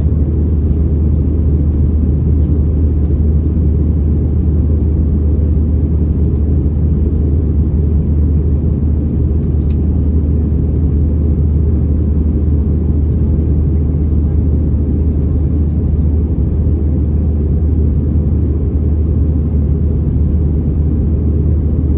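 Steady low cabin roar of an Airbus A319-100 climbing out after take-off: jet engines and airflow heard from inside the passenger cabin, even and unchanging.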